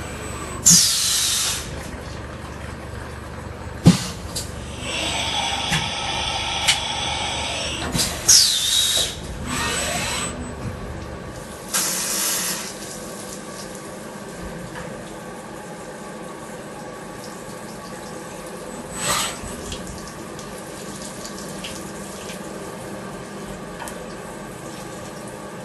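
BL-Y600 CNC milling machine at work: a series of short, loud hissing bursts and a few sharp clicks, with a stretch of steady whirring about five to seven seconds in. A low hum underneath drops away about halfway through.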